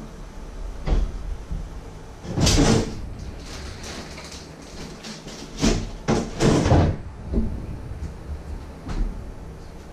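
Someone rummaging in a lower kitchen cupboard: a click, then several short clattering, rustling noises, loudest a couple of seconds in and again midway, and a knock near the end as the cupboard door is shut.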